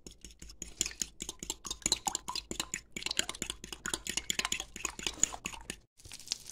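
A fork whisking raw eggs in a bowl: a fast run of light clicks as the tines strike the sides of the bowl. Near the end it cuts to butter sizzling in a hot frying pan, a steady hiss.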